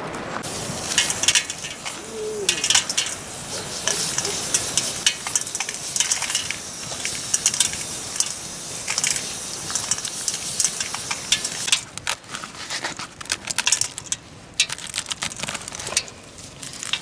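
Dried maize shelled by hand, kernels clicking as they rub off the cob and drop onto a steel plate, beside a wood fire. A dense crackling hiss runs until about two-thirds of the way through, then drops away, leaving sparser clicks.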